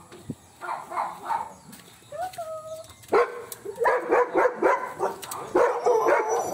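Belgian Malinois barking and whining in excitement: a few short barks, a short whine about two seconds in, then a rapid run of barks, about three a second, from about three seconds in. The excitement comes from the dog recognising someone it has not seen in a month.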